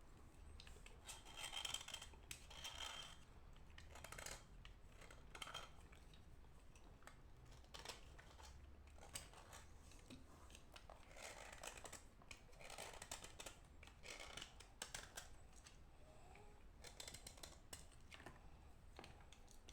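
Quiet, irregular scraping and crackling of a dry lump of edible chalk being handled and broken by hand, with clusters of sharper crunches about a second or two in and again past the middle.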